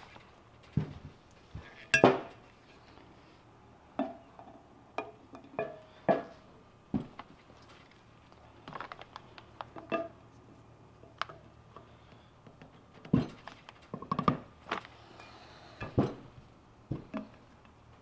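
Irregular light clicks and clinks of hard parts being handled, as urethane bushings are lined up and pushed by hand into a Total Chaos upper control arm's bushing bores. There are about one a second, with a quicker cluster roughly two-thirds of the way in.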